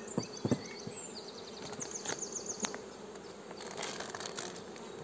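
A Buckfast honeybee colony buzzing as its hive stands open: a steady hum of many bees. There are a few light clicks within the first half second, and a quick run of high chirped notes about two seconds in.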